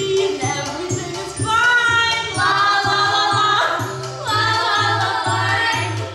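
Music with several voices singing long held notes over a regular, pulsing bass line.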